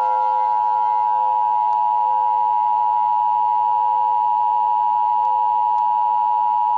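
Emergency Alert System attention signal: a loud, steady electronic tone just under 1 kHz, held without change and cutting off suddenly near the end.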